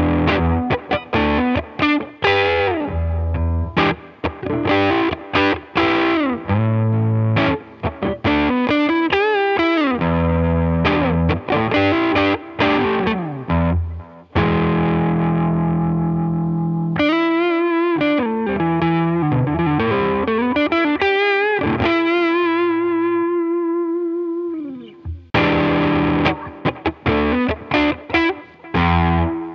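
SQOE SETL980 Tele-style electric guitar played through distortion: picked lead phrases with string bends, a chord let ring about halfway, then sustained notes with wide vibrato. The playing dies away briefly a few seconds before the end and starts again.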